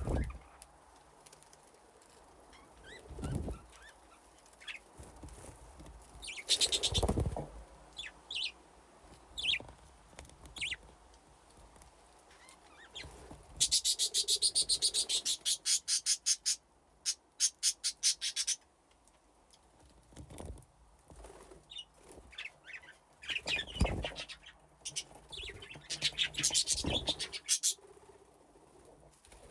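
Budgerigars chirping and chattering, with a fast run of high repeated chirps for about five seconds midway and a few short low thumps, likely wing flutters or landings on perches.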